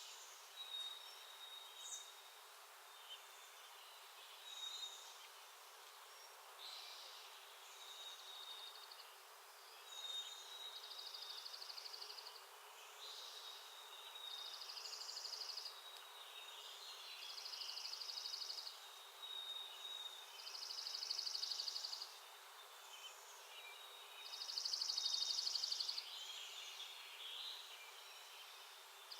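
Songbirds calling: one bird repeats a rapid, even trill every three or four seconds, each about a second and a half long, the later ones louder. Short high chirps and thin whistled notes from other birds come in between.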